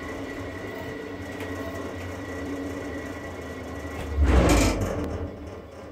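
General International bandsaw running steadily with its wheel covers open, a constant mechanical hum with a faint high whine. About four seconds in, a loud rushing burst swells and dies away within a second.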